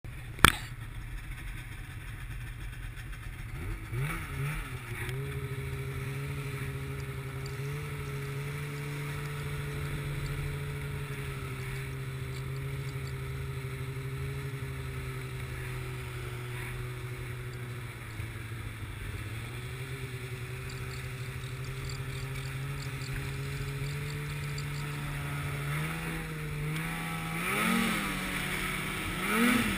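Snowmobile engine idling steadily, then revved twice near the end as the sled sets off through the snow. A sharp click comes right at the start.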